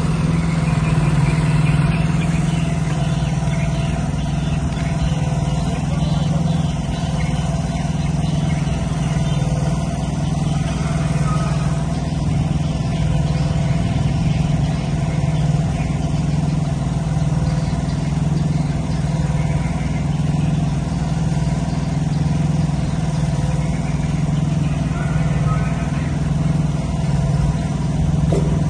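A small engine running steadily at constant speed: a continuous low hum with no change in pitch.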